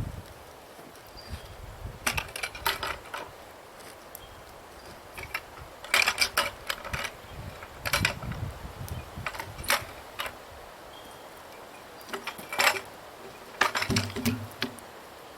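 A ratchet on log-trailer gear, such as a winch or tie-down, clicking in short bursts of rapid clicks a second or two apart, with a low knock near the end.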